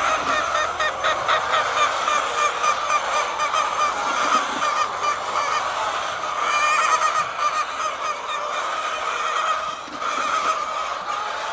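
Many hens calling at once, a dense chorus of overlapping clucks and squawks.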